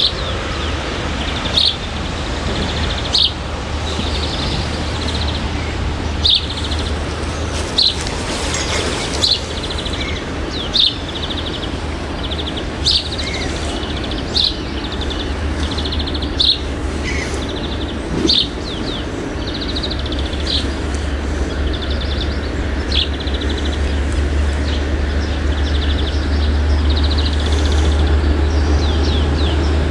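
Songbirds chirping, with short sharp calls and brief trills every second or two, over a steady low rumble that grows a little louder in the second half.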